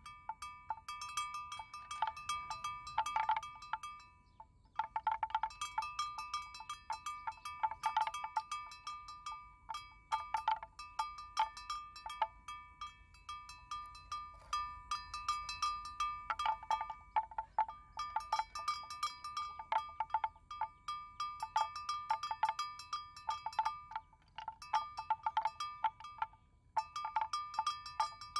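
Neck bell on a grazing water buffalo clanking irregularly as the animal moves its head, each stroke ringing briefly, with a short pause about four seconds in.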